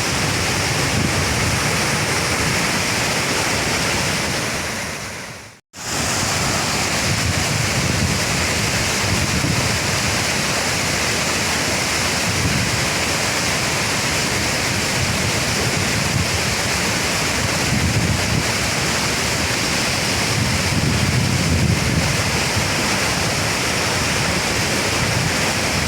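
Waterfall running in spate, a steady heavy rush of falling water, its flow swollen by flooding upstream after hours of rain. The sound dips out briefly about six seconds in and comes straight back.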